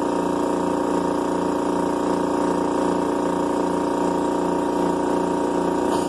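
Small electric air compressor running steadily with an even, pulsing hum as it pumps air through a hose to inflate a balloon.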